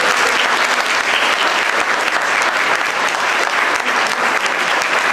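Audience applauding steadily at the end of a vocal recital song, dense clapping that holds its level throughout.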